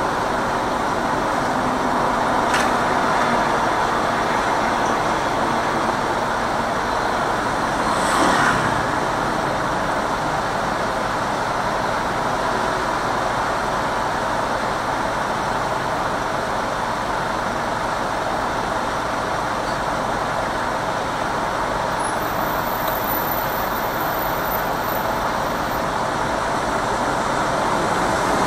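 City traffic noise heard from inside a moving car: a steady blend of engines and tyre noise from the car and the many motorcycles around it. There is a brief sharp sound about two and a half seconds in and a short louder swell about eight seconds in.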